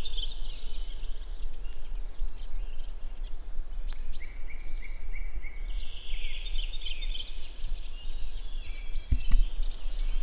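Small songbirds chirping and trilling in bursts, loudest near the start and again around the middle, over a steady low rumble.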